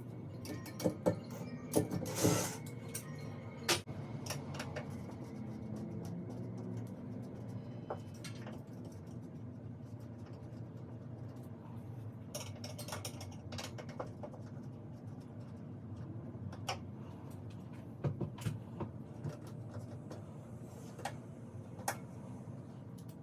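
Scattered clicks, taps and knocks of hand tools and parts being handled during a ceiling fan installation, over a steady low hum.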